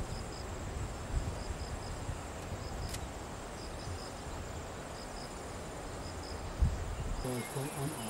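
An insect chirping in short, high-pitched groups of two or three pulses, repeating about once a second, over a steady low wind rumble on the microphone. A brief low thump comes about two-thirds of the way through.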